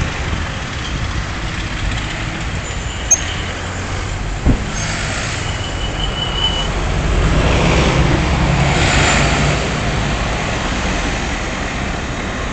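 Street traffic: cars driving past over a steady low rumble, with one passing vehicle swelling loudest from about seven to ten seconds in. Two sharp clicks come about three and four and a half seconds in, and a brief high squeal comes around six seconds.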